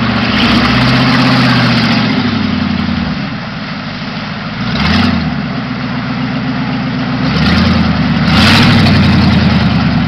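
1992 Ford Bronco's engine revving through a mud hole, with muddy water splashing around the tyres as it pushes through. The engine note drops back for a couple of seconds midway, then climbs again near the end as the truck pulls out.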